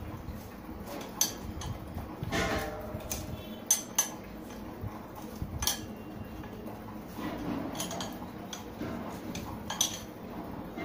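Metal parts of an antique kerosene fan's stand clinking and knocking together as a cast-metal ring is fitted onto its legs by hand. A handful of sharp clinks are scattered through, a few close together about four seconds in, between quieter handling noise.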